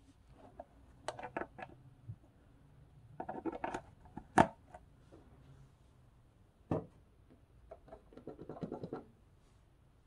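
Handling noise from a handheld phone: fingers scratching and rubbing on it in short bursts, with a sharp click about four and a half seconds in and another near seven seconds.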